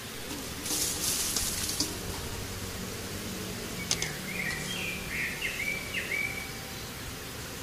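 Outdoor ambience with a bird chirping several short times in the second half, after a sharp click. A brief hiss about a second in.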